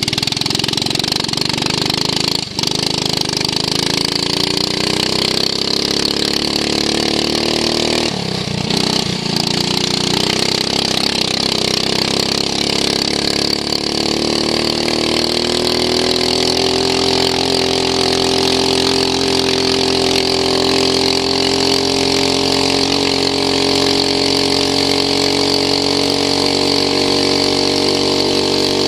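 Racing lawn mower's engine, heard onboard, running hard at speed. The note drops briefly about eight seconds in, then climbs over several seconds and holds high.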